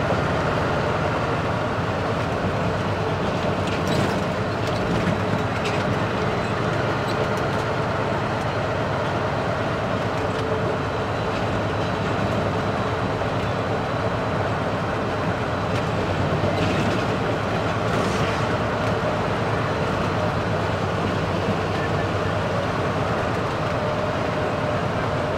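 Scania R500's V8 diesel engine running steadily at cruising speed, heard inside the cab together with road noise. A few brief knocks and rattles about four seconds in and again past the middle.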